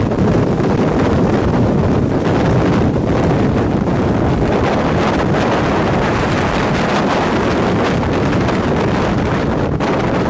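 Strong wind buffeting the microphone, a loud, steady rush of noise, in the winds of a nearby tornado's circulation.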